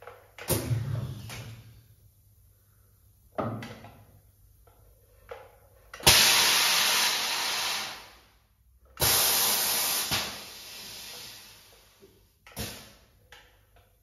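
EMMEGI ITACA hydro-pneumatic corner crimper working through a cycle: clunks as its clamps and crimping tools move, and two long bursts of compressed air hissing, starting sharply about six seconds in and again about nine seconds in.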